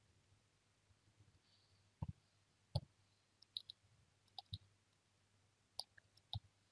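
Faint, irregular clicks of typing on a computer keyboard, with mouse clicks, starting about two seconds in.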